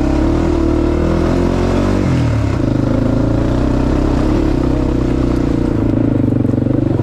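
ATV engine running steadily as the quad is ridden along a rough dirt trail; the engine note drops briefly about two seconds in, then climbs back.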